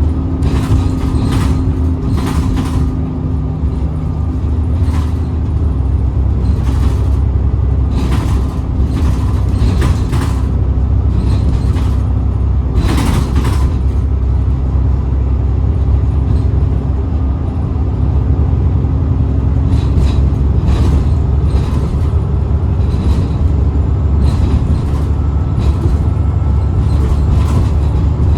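ADL Enviro 400 double-decker bus's diesel engine running with a steady low drone, with frequent short clatters and rattles throughout.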